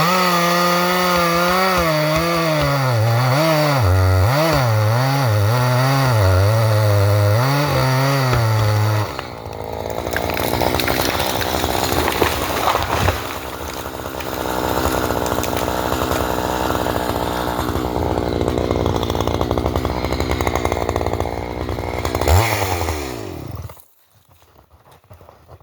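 Chainsaw felling a tree. For about nine seconds the engine revs up and down, then it runs rougher and noisier under load. It winds down with a falling pitch and cuts off about two seconds before the end.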